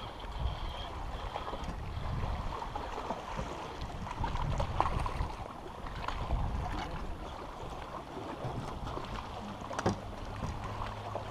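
Wind buffeting the microphone and choppy water lapping at the hull of an aluminum fishing boat, with a few light knocks and clicks. Near the end a low steady hum comes in.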